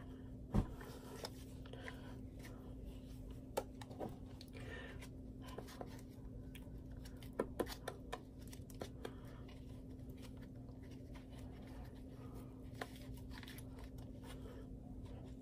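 Quiet handling sounds of hair being wrapped and twisted around a foam flexi rod: faint rustling with scattered small clicks and taps, the sharpest about half a second in, over a steady low hum.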